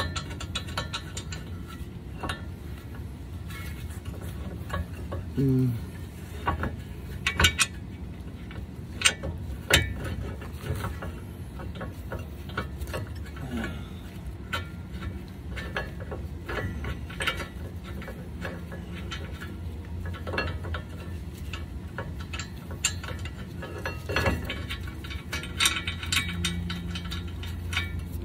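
Scattered metal clicks and clinks as a front brake caliper is held against the hub and its mounting bolts are threaded in by hand, with a few sharper knocks.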